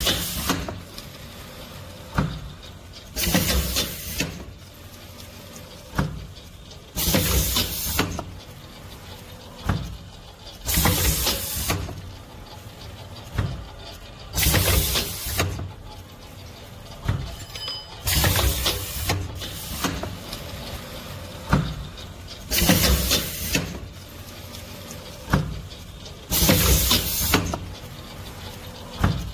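Five-lane powder stick-pack fill-and-seal machine running through its cycle: about every four seconds a sharp click, then a loud hissing burst lasting about a second, over a steady mechanical hum.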